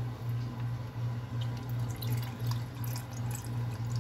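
A stirred whiskey cocktail poured from a copper shaker through its pouring lid into a rocks glass over ice cubes: a steady trickle of liquid splashing onto the ice. A steady low hum runs underneath.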